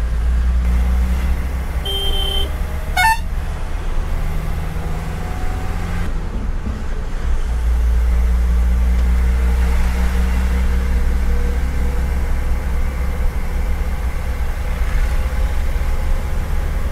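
Truck engine running steadily under way, heard from the cab as a low rumble, with a brief horn toot about two seconds in.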